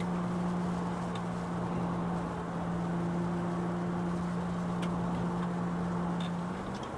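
Car engine humming at a steady pitch while cruising, over even road and tyre noise; near the end the engine note steps up slightly.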